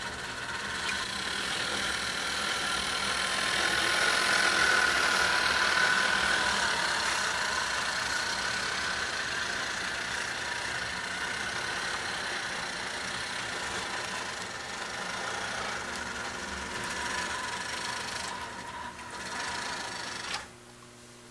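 HO-scale model freight train running along the track: the locomotive's small electric motor whines and the wheels rumble on the rails. It grows louder about four to six seconds in as the cars pass close, then stops abruptly near the end.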